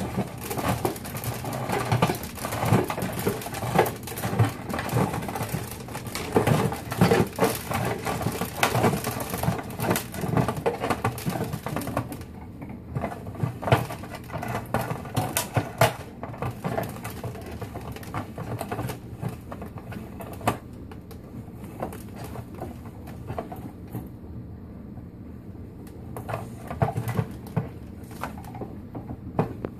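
Hand-cranked MaltMill roller mill crushing malt: a dense, rapid crackle of kernels cracking between the rollers as the crank turns. It thins to scattered clicks after about twelve seconds and picks up briefly near the end.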